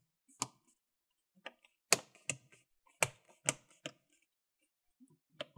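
Plastic LCD bezel of an Acer Aspire 5 laptop lid snapping into place under pressing fingers: about eight sharp, separate clicks at uneven intervals as its clips lock home.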